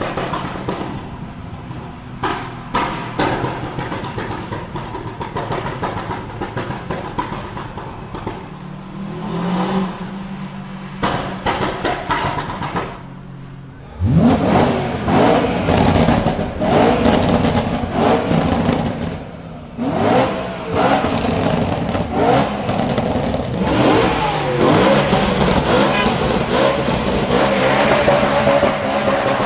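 Performance car engine with sharp exhaust pops and crackles over a low running note. About halfway through the engine revs up sharply and keeps revving hard, rising and falling.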